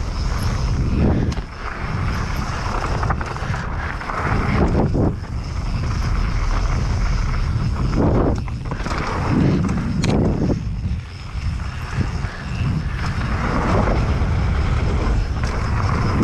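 Mountain bike descending a dirt trail: wind rushing over the rider-mounted microphone and knobby tyres rolling, swelling and easing every second or two, with short knocks and rattles from the bike over bumps.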